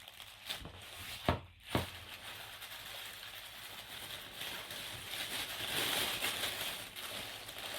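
Packaging being handled as a parcel is opened: two sharp knocks about a second and a half in, then a steady rustle of packaging that grows louder around six seconds in.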